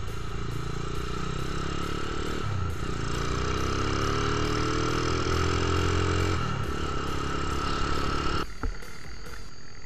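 Kawasaki KLX150 trail bike's single-cylinder four-stroke engine running while riding along, the revs dropping at gear shifts about two and a half and six and a half seconds in and climbing steadily in between. The engine sound cuts off abruptly about a second and a half before the end.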